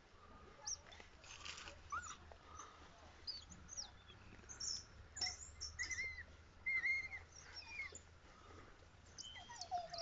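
African wild dogs giving high-pitched twittering calls: a string of short chirps and squeaks, with a cluster of louder arched squeals in the middle.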